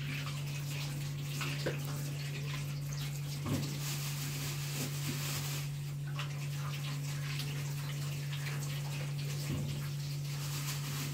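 Kitchen tap running into a stainless-steel sink as carrots are rinsed under the stream, with a few light knocks of the vegetables against the sink. A steady low hum sits underneath.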